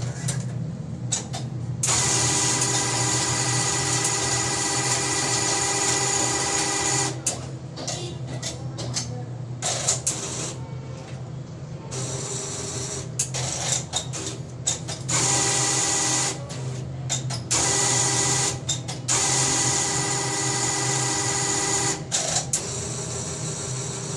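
ATM cash dispenser mechanism running its belts and rollers: a steady mechanical whirr with hiss that starts and stops several times, the longest run about five seconds, with clicks in the gaps. A constant low hum sits underneath.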